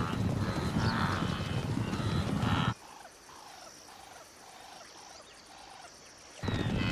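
A wildebeest herd galloping, a dense rumble of hooves with grunting, honking calls, which cuts out abruptly about three seconds in. A quieter stretch follows with a string of short falling animal calls, about two a second, before the herd's hoofbeats and grunts come back suddenly near the end.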